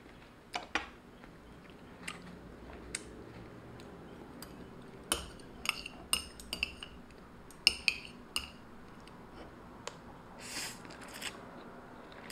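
Metal chopsticks clicking and scraping against a bowl while gathering noodles, with a cluster of sharp ringing clinks about halfway through. A short slurp of noodles comes near the end.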